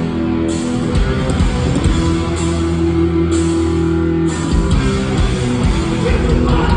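Hardcore punk band playing live through a theatre PA: loud distorted electric guitar chords held and ringing, breaking into faster, choppier playing with drums about four and a half seconds in.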